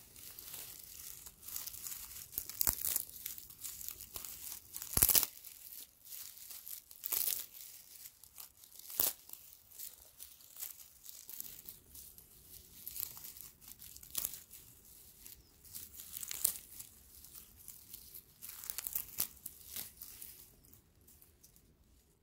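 Dry straw handled close to the microphone: fingers bending, snapping and crumpling the stalks, giving irregular crackles and sharp snaps. The loudest snap comes about five seconds in, and the crackling dies away about a second before the end.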